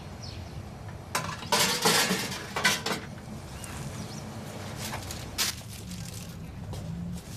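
Dishes clinking and clattering in short bursts: a cluster about a second in, another shortly after, and a single clink about halfway through.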